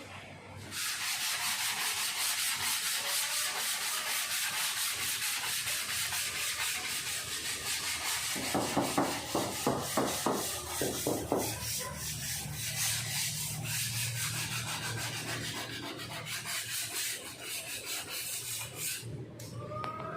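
Cured polyester body filler on a car panel being hand-sanded with sandpaper in even back-and-forth strokes, a dry rasping hiss, with a few seconds of heavier strokes near the middle; the sanding stops shortly before the end.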